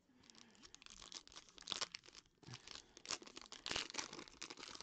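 Foil wrapper of a football trading-card pack crinkling and tearing as it is ripped open by hand, in a run of irregular crackles with the sharpest rip near the end.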